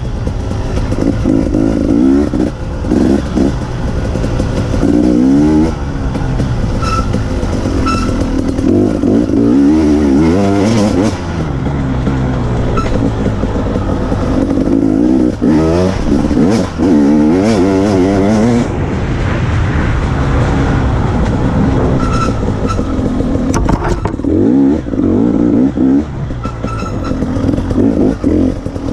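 Off-road enduro motorcycle ridden hard along a rough dirt trail. Its engine revs up and falls back again and again as the rider accelerates, shifts and brakes, with a few sharp knocks from the bike over the bumps.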